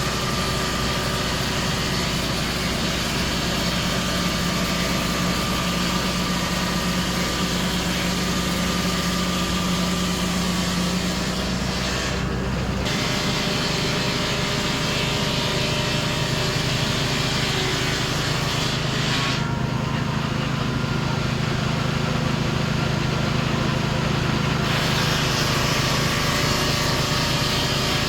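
Portable sawmill's engine running steadily. Its note shifts lower about halfway through.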